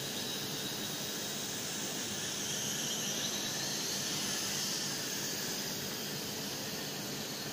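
Night Lions Tech N227 toy quadcopter's small motors and propellers whining and hissing steadily in flight, the pitch wavering a little and slightly louder in the middle as it manoeuvres.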